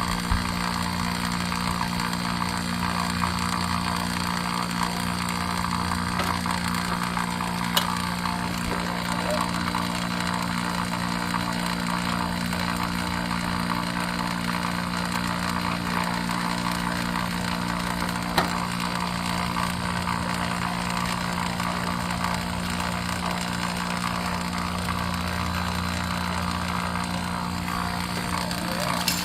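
HVAC vacuum pump running steadily while it pulls a vacuum on the refrigerant lines, a constant motor drone, with a couple of sharp clicks about eight and eighteen seconds in.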